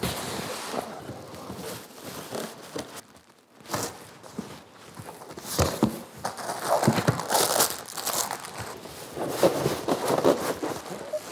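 Large cardboard shipping box for a miter saw being handled and opened: cardboard flaps scraping and knocking, then plastic packaging crinkling and rustling as the wrapped parts are pulled out, denser in the second half.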